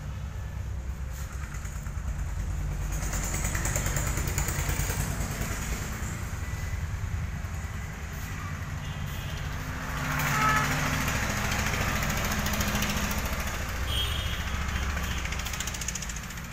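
Motor engine running with a steady low pulse, growing louder about three seconds in and again about ten seconds in.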